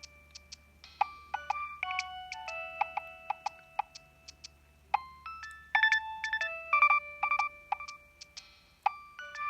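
A preloaded Nokia 3120 polyphonic ringtone playing: a synthesized melody of held notes over a steady beat of short, sharp clicks.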